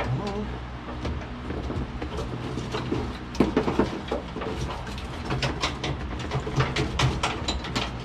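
Old under-dash wiring harness and its plastic connectors being worked loose by hand: irregular clicks, knocks and rattles, coming thicker from about three and a half seconds in, over a steady low hum.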